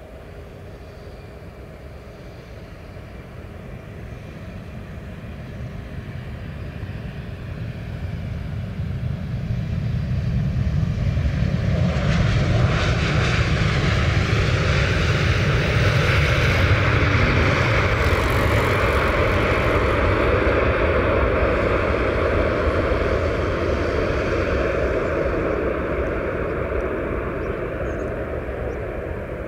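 Boeing 787 airliner landing: its jet engines' noise grows steadily louder as it comes in and touches down. A louder rushing joins about twelve seconds in as it rolls past, then eases slowly as it rolls away down the runway.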